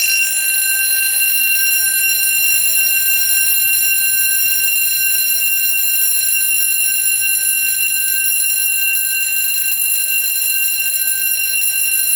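Edwards 439D vibrating fire alarm bell ringing continuously at a steady, loud level: the system is in alarm. The bell is rubbing up against the wall, which the owner says makes it sound really bad.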